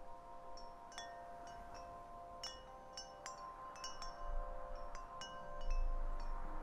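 Soundtrack music opening with scattered ringing, chime-like struck notes over a held chord that shifts about two and a half seconds in.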